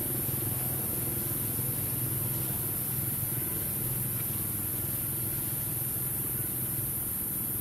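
A steady low mechanical hum, like an engine running at idle, with a constant high-pitched hiss above it and no change throughout.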